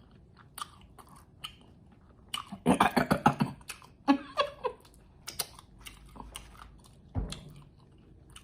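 Close-up chewing and biting of fried chicken wings, with wet mouth clicks and two louder bursts of chewing about three and four seconds in. A single low thump comes near the end.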